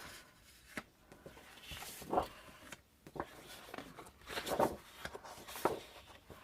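Sheets of patterned scrapbook paper being handled and shuffled: a handful of brief, soft rustles and slides.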